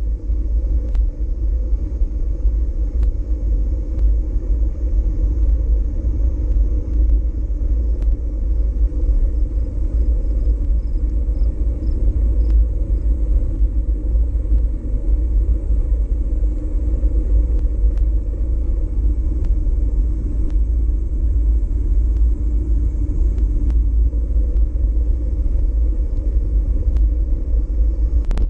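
Steady low wind rumble on a GoPro Hero4 Session's microphone while cycling, mixed with tyre and trail noise and a few faint ticks.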